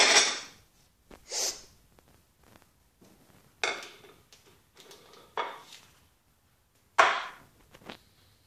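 Kitchen things banged and set down roughly on a counter: about six separate knocks and clatters, one to two seconds apart, with a glass plate among the things handled. The loudest knock comes about seven seconds in.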